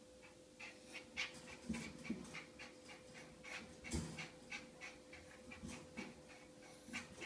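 Small dog panting faintly in quick short breaths, with a soft knock about four seconds in.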